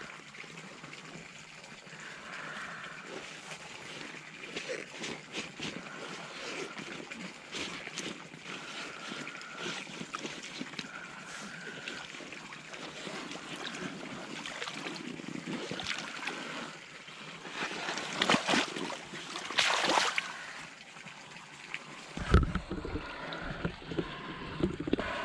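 Rubber boots and rubber rain pants wading in muddy water: sloshing, trickling and small splashes, with a louder splash about twenty seconds in.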